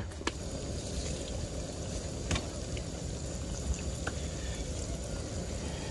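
Herring fillets sizzling in hot oil in a frying pan, a steady crackle with three sharper pops.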